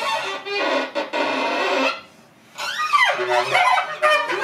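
Contemporary chamber music for winds and strings: dense, noisy playing that breaks off for a moment about halfway through, then resumes with quick, sliding gestures.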